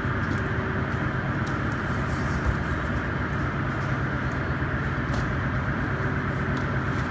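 Steady factory machinery noise: a continuous mechanical din with a low hum and a few faint clicks, which cuts off suddenly at the end.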